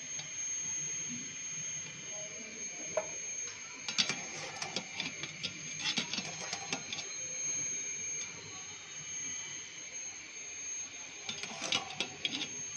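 Metal clinks and rattles of a wire spider strainer knocking against a steel pot and tray as parboiled potato sticks are lifted out. They come in clusters from about four to seven seconds in and again near the end, over a steady thin high whine and a hiss.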